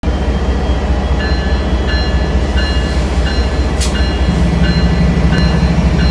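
MBTA commuter rail diesel locomotive running beside the platform, its engine a steady low rumble that fills out a little past four seconds in. Its bell rings about every 0.7 s, and there is one short sharp click just before four seconds.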